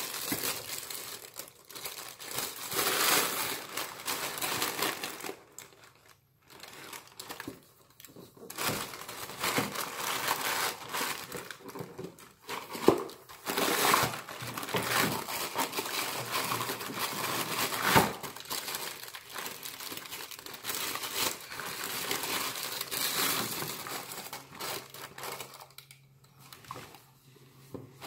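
Tissue paper crinkling and rustling in uneven stretches as a boxed item is unwrapped, with a couple of sharp clicks from the cardboard box about halfway through.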